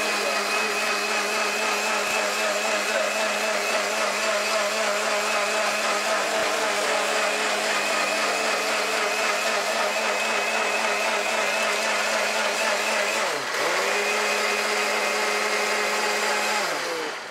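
Electric countertop blender running at full speed, blending tomatoes with ice into juice: a steady motor whine. About thirteen seconds in the motor dips briefly and picks up again, and near the end it winds down and stops as it is switched off.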